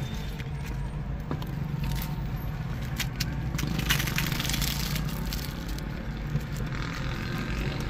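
Steady low hum of a car with the cabin closed around it, with a few light crackles and scrapes from hands tearing crisp tandoor roti and scooping curry from a steel plate, most clearly about three to four seconds in.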